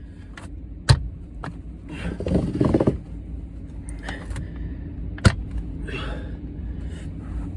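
Carpet knee kicker bumped into indoor-outdoor carpet to hook it onto the tackless strip's pins: two sharp knocks about four seconds apart, with the carpet rustling and scraping between them.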